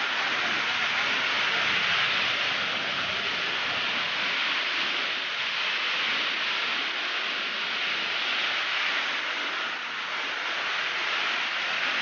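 Waterfall: falling water rushing in a steady, even hiss.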